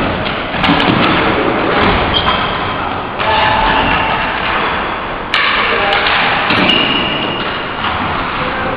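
Floor-hockey play on a gym floor: thuds of sticks and ball under indistinct players' voices, with the noise changing abruptly about three and five seconds in.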